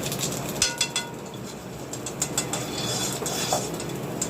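Several sharp clinks and knocks of kitchen utensils over a steady low hum. The loudest clink, about half a second in, rings briefly.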